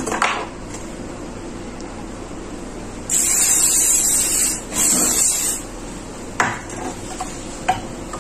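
Perfume spray bottle spritzed twice onto a shirt: a high hiss lasting about a second and a half, then a shorter second hiss.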